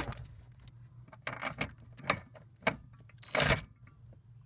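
Metal clicks and knocks of a socket on a cordless impact driver being fitted onto the clutch master cylinder's firewall nut, with a brief louder rattle about three seconds in.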